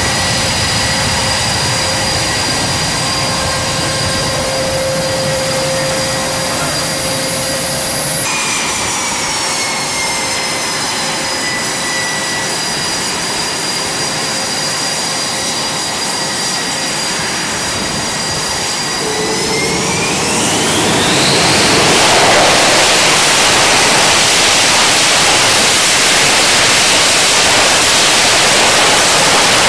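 F/A-18-family strike fighter's jet engines whining steadily at idle with a rushing exhaust. About two-thirds of the way through, the whine rises in pitch and a loud rushing roar builds as the engines run up to full power on the catapult ahead of launch.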